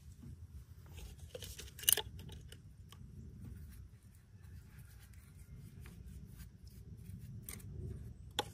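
Light clicks and handling sounds from a hex key at a brass refrigerant service valve and a plastic leak-detector bottle and cap, with one sharper click about two seconds in, over a low steady rumble.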